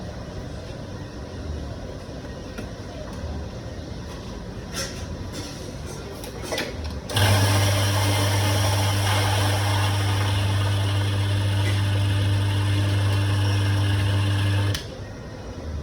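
Electric coffee grinder switched on about halfway through, running with a steady mains hum under a grinding rasp for about eight seconds, then switched off abruptly. A few light clicks come before it.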